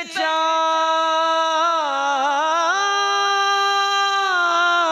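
A man singing an Urdu devotional song in praise of Husain ibn Ali, unaccompanied: one long drawn-out note with wavering ornaments, stepping up in pitch about halfway through and breaking into quicker turns near the end.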